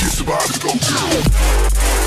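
Electronic dance music with heavy bass. The low end drops out briefly under sweeping synth tones, then a deep sub-bass comes back in about halfway through.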